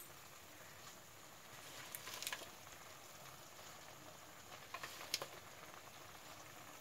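Faint simmering of cooked toor dal in an uncovered pan with fresh spinach leaves heaped in, and a few soft crackles as the wet leaves are pressed down by hand about two and five seconds in.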